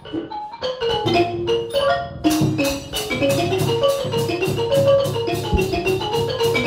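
Thai traditional likay accompaniment music led by a xylophone (ranat) playing quick runs of short notes, with a steady percussion beat joining about two seconds in.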